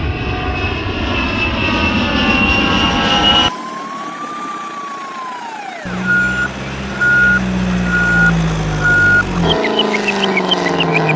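A string of edited vehicle sound effects: an engine running with rising pitch, cut off suddenly into a single whistle that glides up and then falls, then four evenly spaced beeps over a low engine hum like a truck reversing, then another engine starting near the end.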